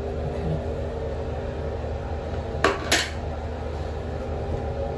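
Steady hum of a ventilation fan, with two short sharp clicks about a third of a second apart near the middle, as the trimmed flap of thin prepasted wallpaper is worked loose in the inside corner.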